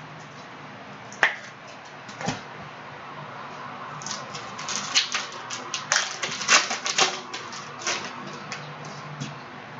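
Crinkling and clicking of a foil trading-card pack being torn open and the cards handled: two sharp clicks, then a flurry of crisp crackles from about four seconds in.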